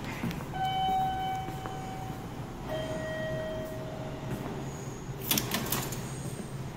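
Two-note descending electronic chime, ding-dong, from the station's ticket-gate area, each note held about a second and a half. A brief rustling clatter follows about five seconds in, over a steady low hum of station ambience.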